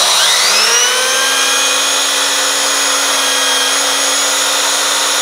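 Numatic Henry Xtra vacuum cleaner running with its Airobrush turbo brush spinning freely in the air, driven by the machine's suction. The whine rises in pitch over the first second as motor and brush spin up, then holds steady.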